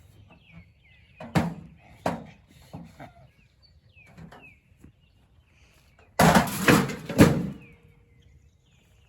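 An old microwave oven being thrown against a fence post: a few sharp knocks, then a louder crashing clatter about six seconds in, lasting about a second. Birds chirp faintly in the background.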